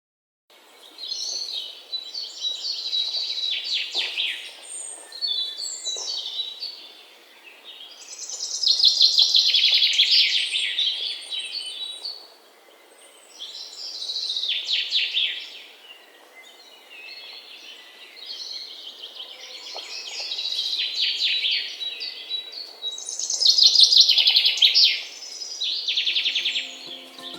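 Birds singing: loud phrases of fast trills and falling notes, each a couple of seconds long, repeated about every four to five seconds, with softer calls between.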